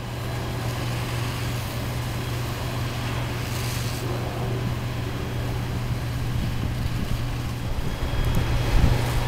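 Fire apparatus diesel engines running steadily at pumping speed, a constant low drone under a broad hiss of water streams and outdoor noise, turning rougher and a little louder near the end.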